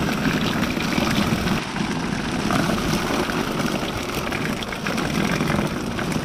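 Fishing boat's engine running steadily, with light scattered clicks over it as the net and fish are handled.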